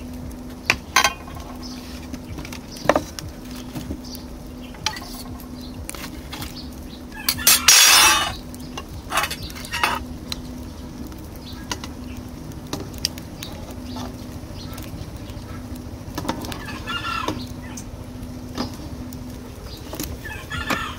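Metal ladle clinking and scraping in a steel cooking pot, with chickens clucking and a rooster crowing in the background, including a call near the end. About eight seconds in there is a brief, louder burst of noise.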